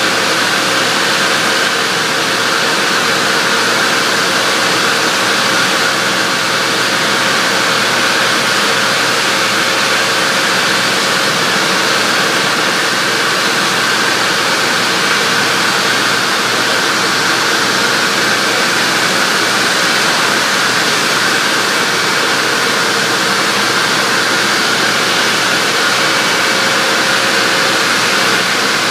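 Belt saw (sawmill) running steadily and loudly while cutting slabs off a log, a continuous mechanical din with no pauses.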